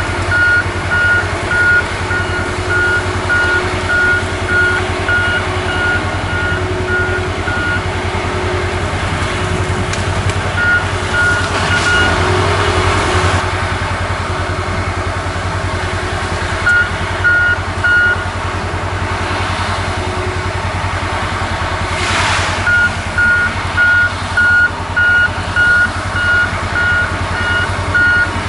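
Heavy diesel logging machinery running steadily while a reversing alarm beeps, the beeping stopping and starting several times as the machine backs up and moves forward. Two brief louder surges rise over the engine about twelve and twenty-two seconds in.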